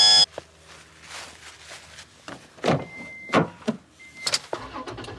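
Clicks and knocks of plastic latches and a vehicle door being handled, with two short electronic beeps in the middle. A loud steady tone cuts off just after the start.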